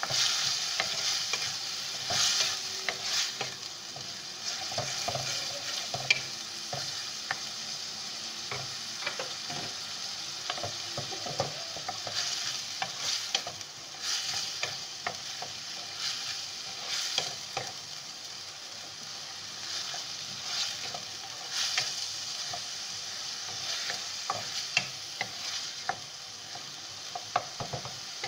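Finely chopped onions sizzling in hot oil in a metal karahi, with a wooden spatula stirring and scraping them around the pan in irregular strokes. A steady frying hiss runs under the scrapes.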